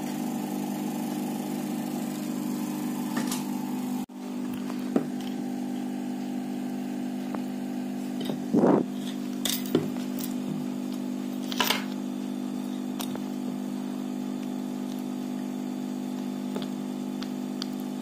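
Steady electric hum of a hot-air heat gun's blower running while glue is softened. A few brief scrapes and clicks of pliers and cloth on the plastic housing come in around the middle.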